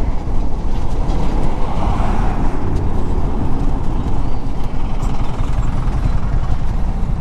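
Yamaha R15 V3 motorcycle ridden through heavy city traffic, heard from a camera mounted on the bike: a steady, loud rush of wind and engine-and-road rumble, with buses and trucks running alongside.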